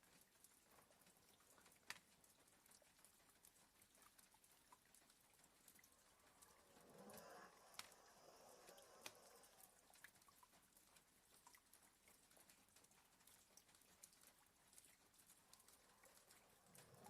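Faint rain tapping, with scattered light ticks and a few sharper drips. A sleeping dog's soft snoring breath swells once about seven seconds in.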